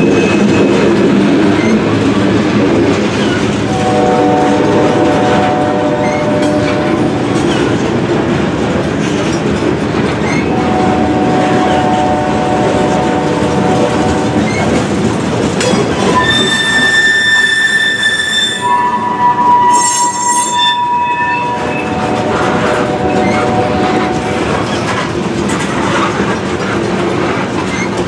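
Freight train of covered hopper cars rolling past at a grade crossing: a steady rumble of wheels on rail, with several stretches of drawn-out pitched squealing. The highest and shrillest squeal comes a little past halfway.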